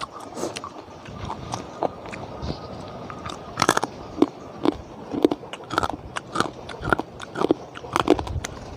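Someone chewing and crunching crunchy food close to the microphone, in a steady rhythm of about two crunches a second that grows louder about a third of the way in.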